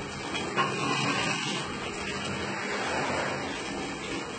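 Tap water running steadily, a continuous even rush with a faint low hum beneath it.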